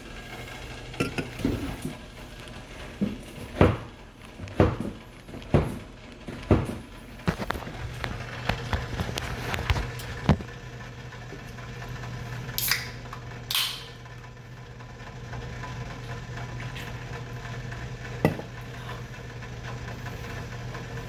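Kitchen clatter: a run of sharp knocks and clicks from dishes, pans and utensils being handled, then two short hissing bursts about two-thirds of the way in, over a steady low hum.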